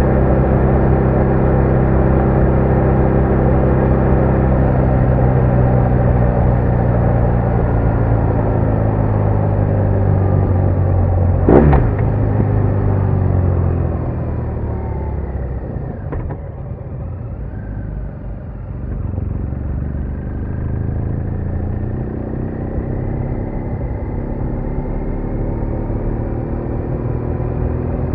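BMW R1200R's boxer-twin engine running at a steady pace under way, with a sharp knock about twelve seconds in. About halfway through the throttle comes off and the engine note falls. Near the end it pulls again with a rising note.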